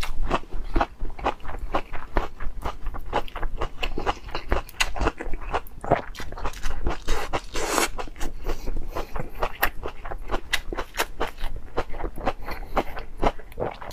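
Close-up biting and chewing of crisp baby corn: a fast, irregular run of crunches and wet mouth clicks.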